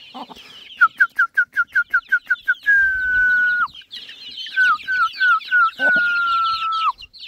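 A high whistle over the constant peeping of a flock of young chicks: about ten quick short whistled notes, a held note about a second long that drops at its end, then four more short notes and a second long held note that drops at its end.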